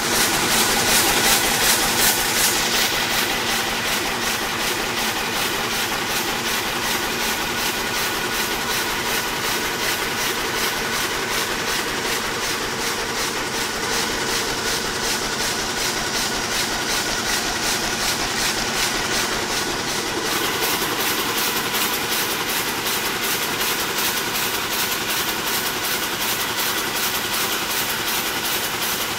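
Rapier loom weaving headscarf cloth at full speed: a rapid, even mechanical clatter, beat after beat, with a steady machine whine underneath.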